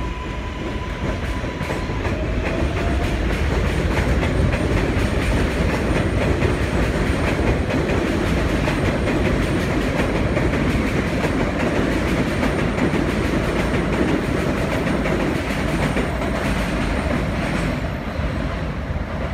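New York City Subway 7 train running past on the steel elevated structure overhead. It is a heavy, steady rumble full of rapid wheel clicks that builds over the first couple of seconds and eases off near the end.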